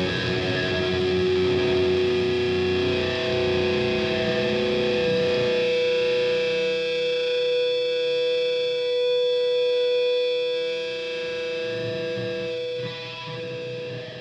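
Distorted electric guitar through effects, holding long sustained ringing drones that fade out near the end.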